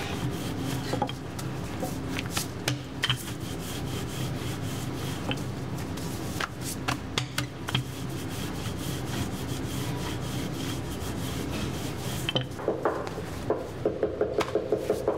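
Wooden rolling pin rolling out thin dürüm flatbread dough on a floured counter: steady rubbing and scraping with scattered light knocks. Near the end comes a quick, regular knocking, about four a second.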